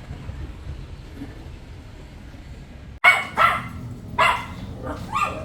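A dog barking: four or five short sharp barks starting about three seconds in, over a low steady background rumble.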